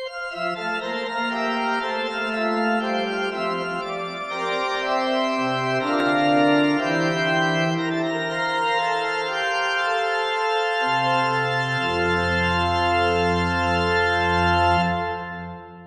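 Organ playing slow, sustained chords. A deep bass note comes in about twelve seconds in, and the music dies away near the end.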